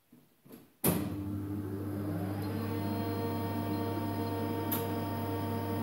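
Brother HS300 wire EDM machine switching on about a second in, then running with a steady electrical hum and several steady tones, one rising whine levelling off as a motor comes up to speed. A single sharp click near the end.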